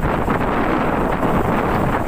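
Steady wind noise buffeting the microphone of a Honda CB150R motorcycle on the move, with the engine running underneath.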